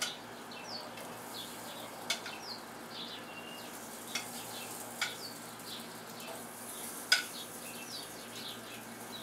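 Sliced potatoes sizzling on a hot gas grill grate as they are laid down one by one with metal tongs, with several sharp clicks of the tongs against the plate and grate.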